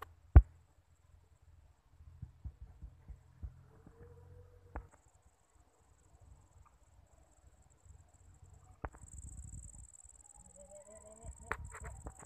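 Insects trilling in a steady high thin tone, stronger from about nine seconds in. Several sharp thumps, the loudest just under half a second in.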